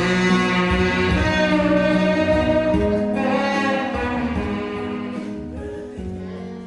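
Instrumental music: a melody of long held notes over an accompaniment, growing quieter toward the end.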